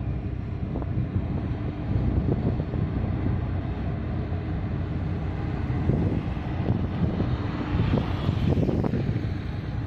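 Steady low engine rumble of a pilot boat running past close alongside a large departing tanker, with wind buffeting the microphone. About eight seconds in, a van drives past close by and briefly adds a louder hiss.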